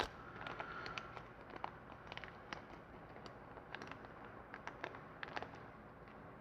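Faint, irregular clicks and light rustling from handling a packet of small pick-gun needles.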